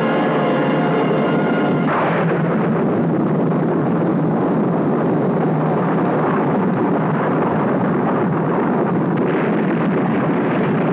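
Film soundtrack: a held music chord breaks off about two seconds in into a long, steady rumbling roar, a war sound effect accompanying a missile attack.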